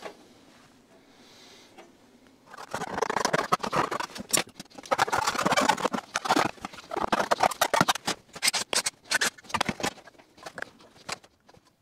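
Rapid scraping and clattering of a thin sheet-aluminum fan shroud and small metal parts being handled, starting about three seconds in and thinning out near the end.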